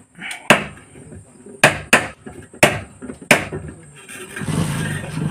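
Pliers tapping on a ceiling-fan stator, six sharp metallic knocks in an uneven rhythm, to seat it within the fan's magnet strips. Near the end a steady low hum comes in.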